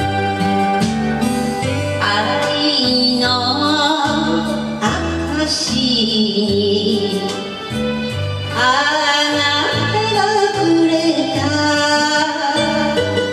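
A woman sings an enka song into a handheld microphone over a karaoke backing track. Her voice comes in about two seconds in and carries the melody with vibrato over steady bass notes.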